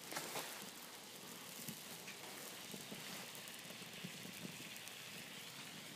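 Water boiling in a cast-iron skillet over a wood-pellet gasifier fire: a steady hiss with small scattered crackles and pops.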